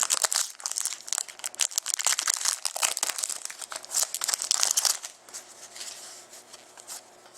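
A trading card pack's wrapper crinkling and tearing as it is opened and handled, a dense crackle for about five seconds that then drops to quieter rustling.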